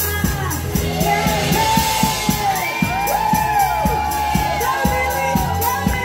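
A woman singing live into a microphone over amplified music with a steady beat, with whoops and cheers from the crowd.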